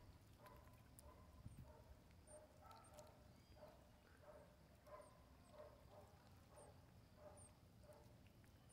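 Marmoset giving faint, high-pitched short chirps about once a second, with softer, lower repeated blips in between.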